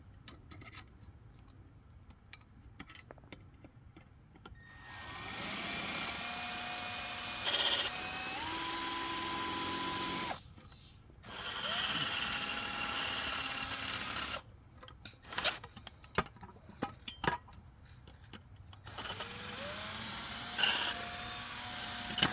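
Power drill drilling out metal rivets in three runs. Each run starts with a rising whine as the motor spins up, then holds a steady grinding whine. Light clicks and knocks come between the runs.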